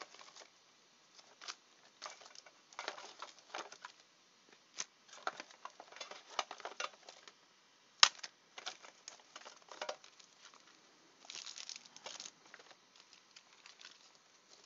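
Trading cards and their packs being handled: faint, irregular rustling, tapping and crinkling, with one sharp snap about eight seconds in and a short burst of crinkling near the end.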